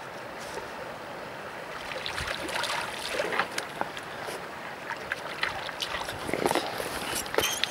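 River water flowing and lapping at the bank close by, with a steady rush and many small irregular splashes and clicks that thicken after about two seconds.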